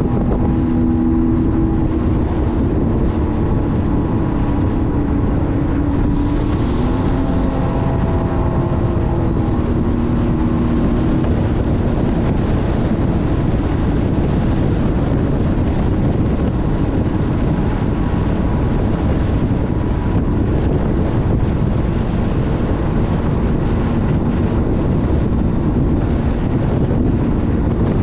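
Sea-Doo personal watercraft running under way, its engine and jet drive droning steadily with water rushing past and wind buffeting the microphone. The engine note shifts in pitch a few times in the first ten seconds, then holds steady.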